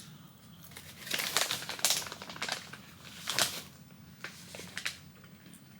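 Irregular crisp crackles and clicks from handling and eating a milk chocolate pecan cluster: the candy and its packaging crinkling, and the crunch of biting into it.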